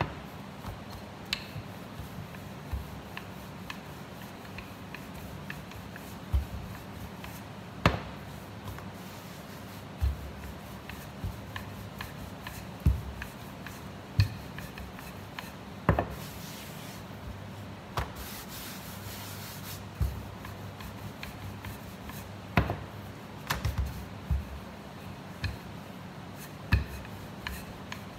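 Wooden rolling pin rolling out pizza dough on a floured stainless-steel counter: a soft rubbing, broken every second or two by sharp knocks as the pin strikes the steel top, over a low steady hum.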